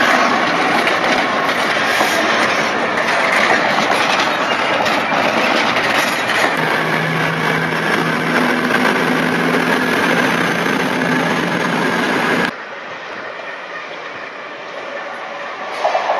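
Trains passing close by at speed: the rush and clatter of wheels on the rails, first a freight train of open box wagons behind an EWS Class 66 diesel locomotive, then a Virgin express passenger train. The noise cuts off suddenly about twelve seconds in, and near the end an approaching diesel locomotive is heard getting louder.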